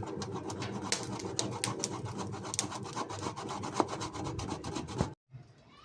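Continuous rasping, scraping sound with many small clicks, cutting off suddenly about five seconds in.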